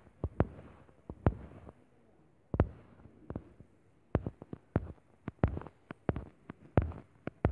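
Irregular soft taps and thumps of fingers on a phone's touchscreen and body, more than a dozen, coming faster in the second half.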